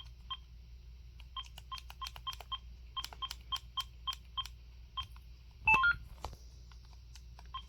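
Cordless phone handset keypad beeping as buttons are pressed to scroll through a settings menu: a string of short, identical key beeps, a few a second, each with a faint click. About six seconds in there is a brief, louder chirp of a few stepped notes from the handset.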